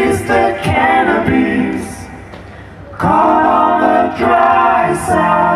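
A song with sung vocals playing through the Fenda F&D F550X 2.1 speaker system with its 6.5-inch subwoofer; the singing dips about two seconds in and a strong new phrase comes in about a second later.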